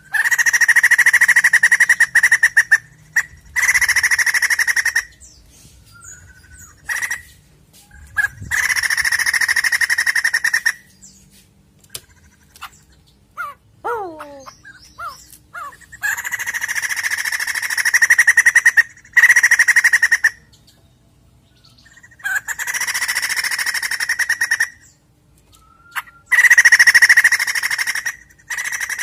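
White-crested laughingthrush calling loudly in repeated bursts of one to three seconds, each a fast, even-pitched rattling chatter, with short pauses between; a few quick falling notes come midway.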